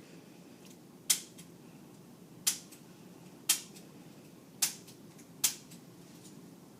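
Five sharp clicks about a second apart, from a chiropractic adjustment.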